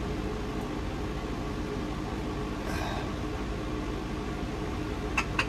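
A steady low machine hum, with a brief rustle about halfway through and two sharp clicks close together near the end.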